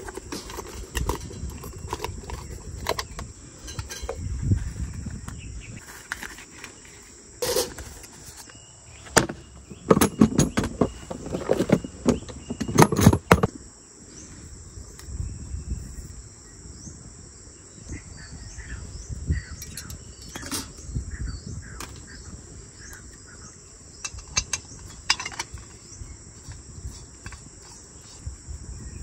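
Steady high-pitched insect chorus, with a run of clicks and knocks over it, loudest from about ten to thirteen seconds in.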